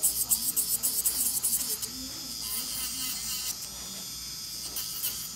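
Electric nail drill running with its bit on an acrylic nail, a steady high whir. Background music with a beat is heard in the first two seconds and then drops away.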